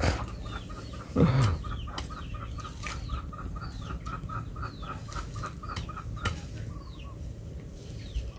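Chickens: a hen clucking in a quick, even series, about five clucks a second, that stops a little past the middle, with high, thin falling peeps over it. A louder falling sound comes about a second in, and a few sharp clicks.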